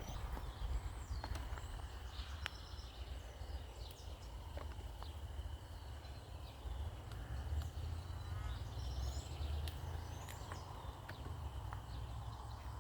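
Outdoor garden ambience: birds chirping here and there, over a steady high-pitched hum and a low rumble.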